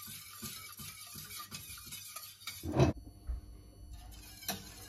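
Wire whisk stirring thin flour soup in a stainless steel pot, a faint scratchy swishing, to keep the kavut flour from lumping as it heats. About three seconds in there is one loud low knock.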